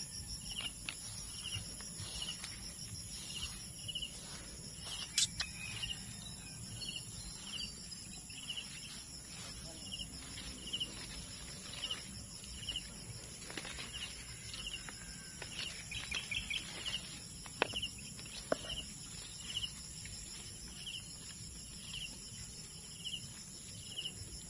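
Insects droning steadily in a high-pitched, unbroken chorus, with a short chirp repeating about twice a second. A few sharp clicks and rustles of plants being handled come through, loudest around the middle.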